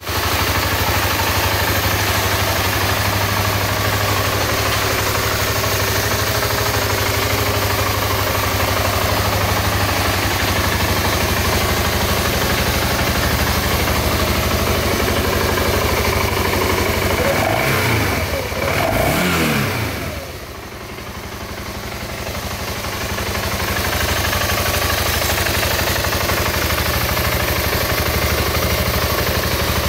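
BMW G650GS single-cylinder motorcycle engine idling steadily, revved up and back down a couple of times a little over halfway through before settling back to idle.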